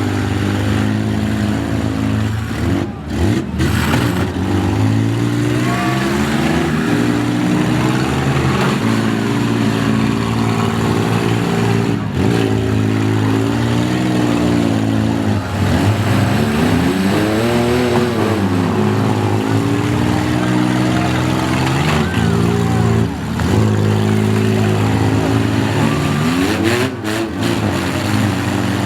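Demolition derby cars' engines running loud and revving, their pitch rising and falling throughout. One engine revs up and back down about two-thirds of the way through.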